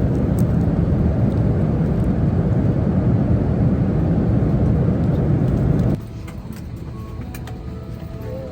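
Steady rumbling noise of an airliner cabin in flight, cutting off suddenly about six seconds in to a much quieter background with faint tones.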